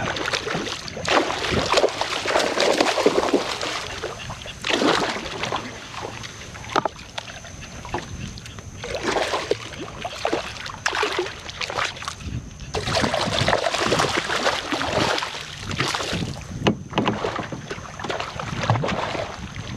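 Water slapping and sloshing against a kayak's hull in irregular surges that come and go every few seconds.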